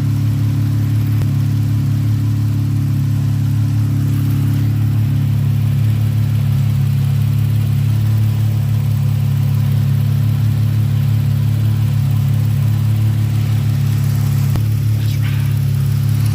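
Dodge Challenger SXT's V6 engine idling steadily, breathing through a freshly fitted Spectre cold air intake.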